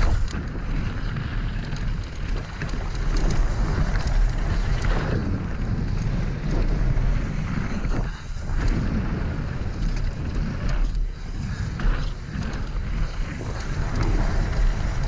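Wind rushing over an action-camera microphone on a mountain bike descending a loose gravel trail at speed, with the tyres rumbling over stones and short knocks and rattles as the bike hits bumps.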